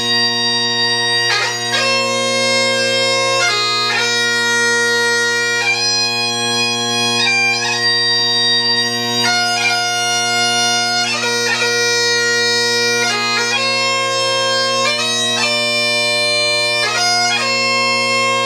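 A solo bagpipe playing a slow melody over its steady drones; the chanter moves from note to note while the drones hold unchanged underneath.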